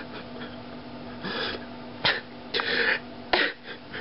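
A young man crying: a few sharp, noisy sobbing breaths and sniffs, with two brief clicks between them.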